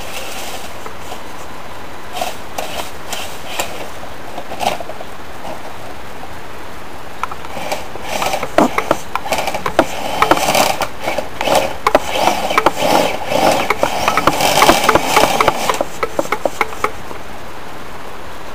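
Kyosho Blizzard radio-controlled tracked vehicle clattering and scraping over rough ground: a few scattered knocks at first, then a dense run of rattling and scraping from a little under halfway in that stops shortly before the end, over a steady hiss.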